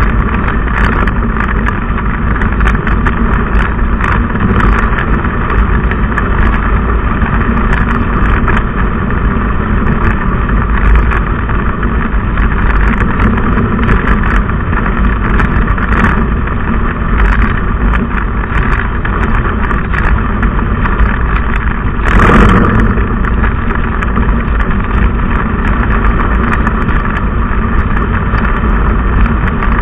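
Steady road noise of a car driving at speed: tyre and wind rush over a low engine rumble, with one brief louder rush about three-quarters of the way through.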